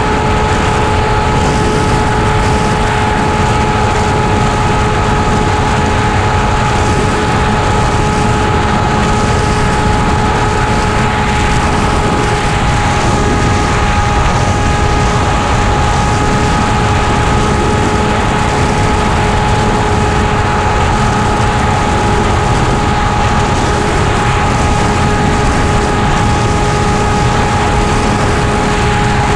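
Motor and propeller of an RC model airplane heard from its onboard camera, humming at one steady pitch with the throttle held constant, over heavy wind rush on the microphone.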